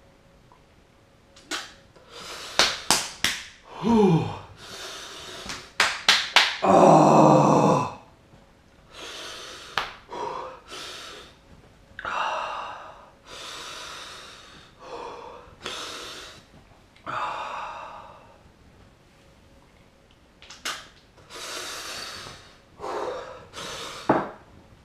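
A man breathing hard and gasping against the burn of a superhot chilli: sharp hissing intakes of breath and sniffs, a short falling vocal sound about four seconds in, a long heavy exhale soon after, then slower labored breaths.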